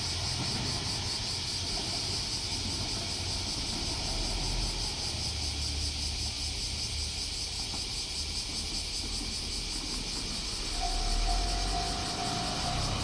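A JR Shikoku diesel railcar's engine rumbling low near the level crossing, under a steady high buzz of insects. The crossing's warning bell, a repeating steady tone, starts ringing again about eleven seconds in.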